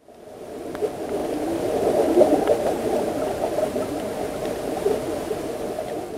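Muffled underwater ambience: a steady bubbling rush that fades in over the first second or so, with a few faint clicks.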